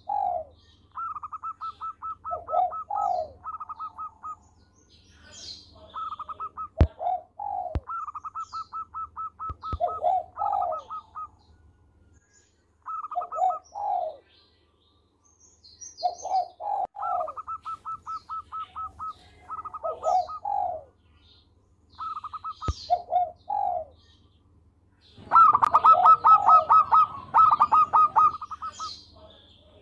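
Zebra dove (perkutut) singing phrase after phrase: each a quick run of short staccato coos followed by lower rolling coos, with brief pauses between phrases. The loudest, fullest phrase comes near the end.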